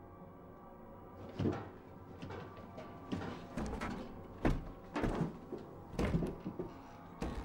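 Irregular knocks and creaks of things being handled and rummaged through, about half a dozen, mostly bunched in the second half, like a cupboard or door being worked.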